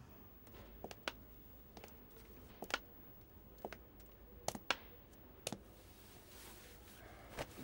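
Faint footsteps of hard-soled shoes on a wooden floor: sharp clicks about one a second, some as quick heel-toe pairs.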